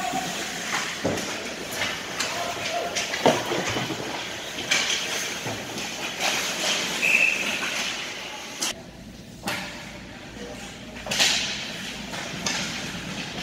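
Ice hockey play on an indoor rink: skate blades scraping the ice and sharp clacks of sticks and puck, repeated throughout, with spectators' voices in the background.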